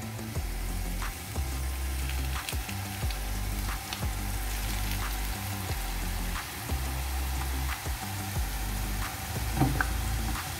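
Hot oil sizzling around rolled corn-tortilla tacos frying in a shallow pan, with scattered sharp pops and crackles as more tacos are laid into the oil. Background music with a low bass line plays underneath.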